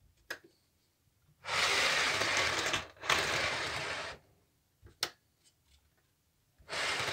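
00 gauge model railway wagon pushed back and forth over a Peco Bullhead point during a roll test: three spells of rolling noise about a second long each, the last starting near the end, with two sharp clicks in between.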